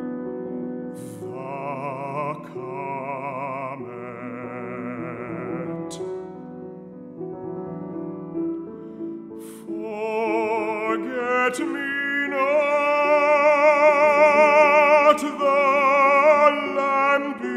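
Classical baritone singing with wide vibrato over piano accompaniment. The voice comes in about a second in, drops out near six seconds while the piano carries on, and returns around ten seconds, growing louder.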